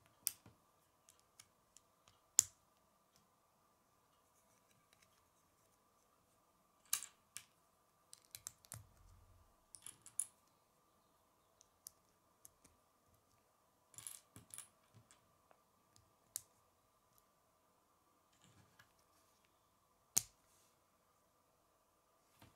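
Plastic Lego bricks handled and snapped together: scattered sharp clicks and short clusters of small clatter. The loudest click comes about two seconds in, and another near the end.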